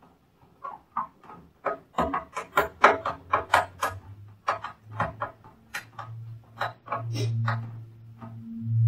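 Phillips screwdriver driving screws into a UPS's metal case: a run of sharp, irregular clicks, thickest from about two to four seconds in. A low steady hum starts about two seconds in and grows louder near the end.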